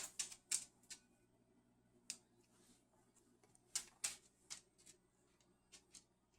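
Scattered sharp clicks and taps, about a dozen at irregular intervals, bunched in the first second and again around four seconds in, from a cockatoo moving about and picking at things.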